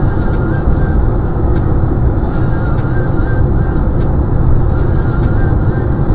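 Steady low road and tyre noise of a car cruising at highway speed, heard inside the cabin.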